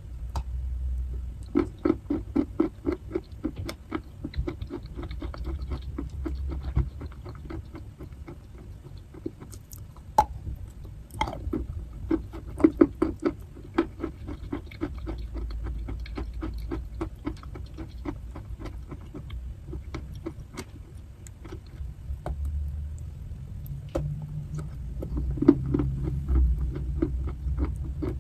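Close-up chewing of a chalk chunk coated in clay paste: runs of quick, crisp crunches mixed with soft, wet chewing, a few crunches a second.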